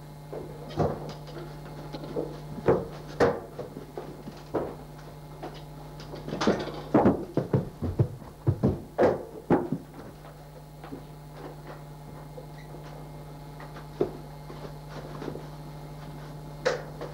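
Irregular thumps and knocks of a door and people moving about in a doorway, bunched in the first ten seconds and sparse after, over a steady low hum.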